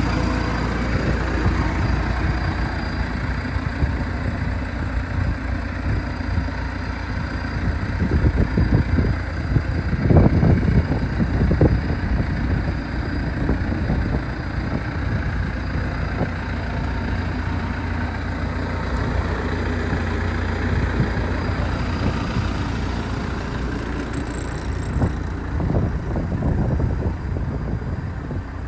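CAT 317 tracked excavator's diesel engine idling steadily, a low even rumble, with a few louder rumbling surges about a third of the way in.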